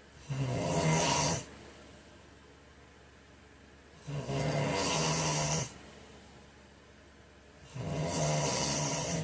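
A man snoring in his sleep: three loud snores, each lasting a second to a second and a half, evenly spaced about every three and a half to four seconds, with quiet breathing between them.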